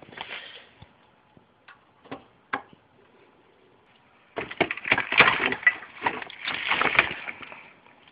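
Scattered sharp clicks, then a dense run of crackling, clattering handling noise in the second half: hands working around a computer's RAM slot with a handheld camera.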